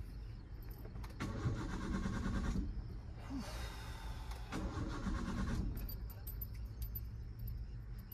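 Suzuki hatchback's starter motor cranking the engine in two attempts, about a second and a half and then about a second long, without the engine catching: a car that won't start.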